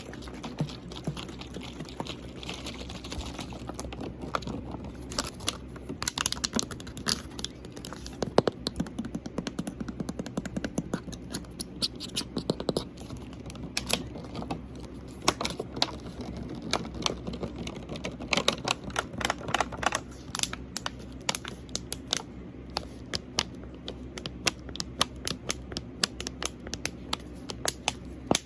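Fingernails tapping on a water bottle: quick, irregular clusters of sharp taps with short pauses between them.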